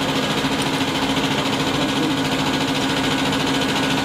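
Injection pump test bench running, its electric drive turning a four-cylinder Bosch in-line diesel injection pump with a steady, even hum.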